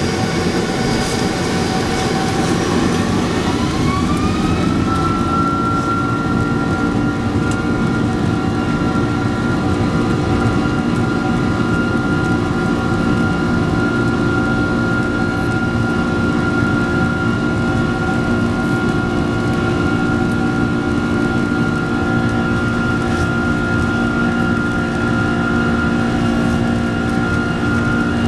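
Boeing 767's turbofan engines heard from inside the cabin while taxiing: a few seconds in, the engine whine rises in pitch as thrust comes up, then holds steady over a constant rumble.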